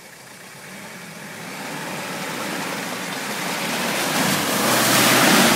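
Off-road SUV's engine running under load as it ploughs through deep mud ruts, growing steadily louder as it approaches. About four seconds in, the tyres throw up muddy water with a loud splashing rush.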